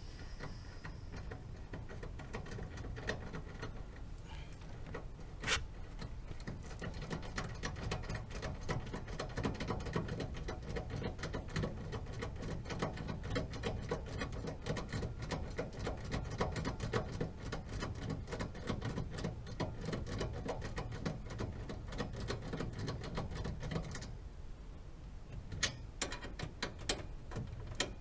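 Rapid mechanical clicking, many sharp ticks a second, that runs densely for about twenty seconds and then thins to scattered louder clicks near the end.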